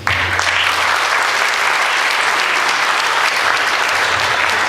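Audience applauding: a dense, steady round of hand-clapping that starts suddenly as a speaker says thank you.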